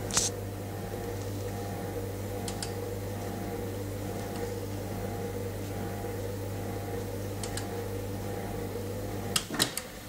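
Miele EurostarSC dishwasher humming steadily as its programme starts, with a few faint double clicks. Near the end several sharp clicks come and the low hum cuts off.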